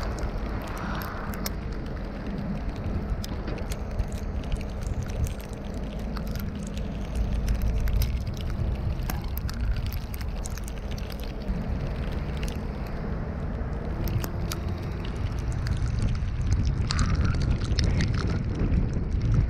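Car driving: a steady low rumble of engine and road noise, with scattered small clicks and ticks, a faint steady hum in the first half, and the noise growing louder near the end.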